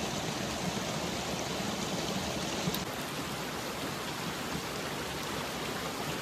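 Steady, even rush of running water, with one faint click about three seconds in.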